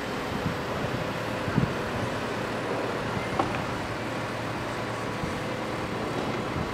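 Mobile crane's diesel engine running steadily while it lifts a trimaran, with wind on the microphone and a couple of short knocks, about one and a half and three and a half seconds in.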